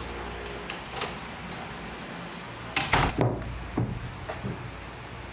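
Interior door being handled: clicks and knocks of the lever handle and latch, loudest as a short cluster about three seconds in, over a steady low hum.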